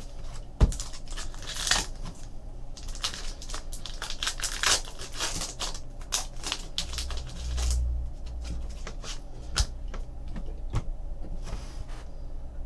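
Trading cards being flipped through by hand and a foil card pack being opened: a run of quick paper rustles, crinkles and light clicks, with a dull bump about halfway through.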